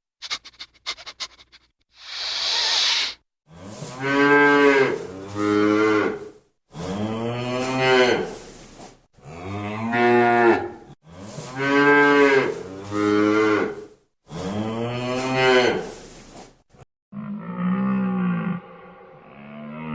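Cow mooing: five long, near-identical moos, each in two parts, followed by a few lower, shorter calls near the end. A short breathy blast comes just before the first moo.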